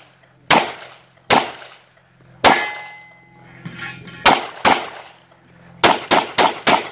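Pistol shots at an action pistol stage, about ten in all. First come single shots about a second apart, then a pair, then a fast string of five near the end. One early shot is followed by a brief metallic ring, as of a steel target being hit.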